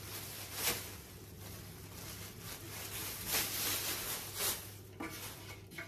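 Clear plastic wrapping rustling and crinkling as the grill is handled, with a few louder rustles, over a low steady hum.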